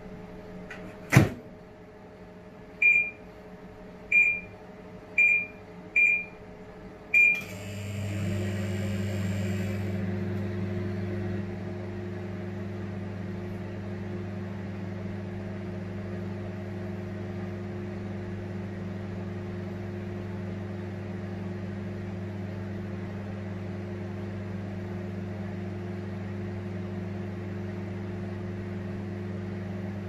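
Commercial Panasonic microwave oven: the door shuts with a sharp latch click about a second in, and five short keypad beeps follow. The oven then starts up with a steady low hum and fan noise, louder for the first few seconds, then running evenly as it heats.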